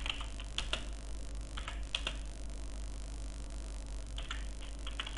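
Computer keyboard keys being typed in short clusters of a few keystrokes, with pauses between, over a steady low hum.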